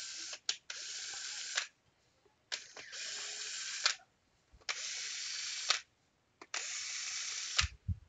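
Cordless drill/driver backing screws out of a tablet's rubber bumper, run in short whirring bursts of about a second each, five in all, each stopping sharply.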